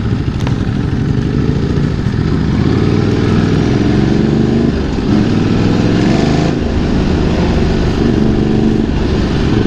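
Ducati Multistrada 1200's 1198 cc L-twin engine running under the rider, pulling with its pitch rising over a few seconds as the bike gathers speed at low town speeds.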